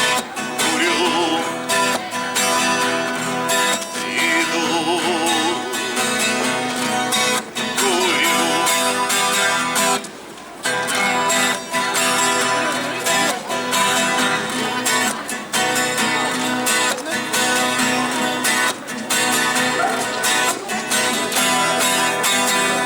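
Acoustic guitar strummed steadily in a song's instrumental passage, with a few long, wavering wordless vocal notes in the first eight seconds. The strumming breaks off briefly about ten seconds in, then carries on.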